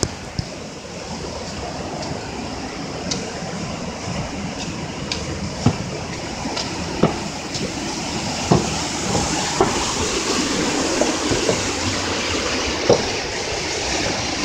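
Rushing river water, a steady noise that grows slightly louder, with footsteps knocking on wooden boardwalk planks about once a second.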